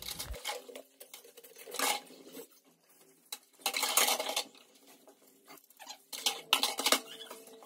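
Dishes being washed by hand at a kitchen sink: plates and cups scrubbed, rubbed and knocked together in three or so short bursts.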